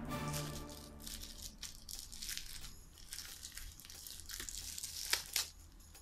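Thin plastic wrapping handled and peeled open by hand: irregular crinkling and rustling, with two sharper crinkles about five seconds in.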